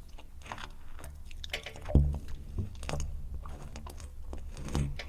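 Saxophone played for wet, squelching key and breath noises over a steady low drone, with pitched low thumps: the loudest about two seconds in, then three more.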